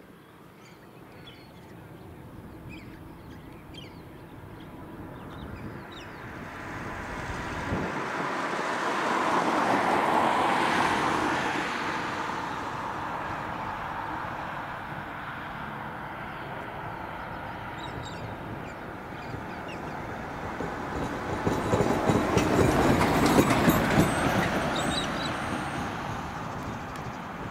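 Two road vehicles passing by, each a swell of engine and tyre noise that rises and falls over several seconds, the first loudest about ten seconds in and the second about twenty-three seconds in.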